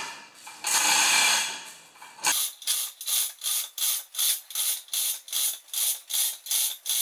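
Manual chain hoist being hauled by its hand chain, lifting the front of a lawn tractor. A rushing rattle of chain for about the first two seconds, then regular strokes of chain rattle and ratchet clicks, about two and a half a second.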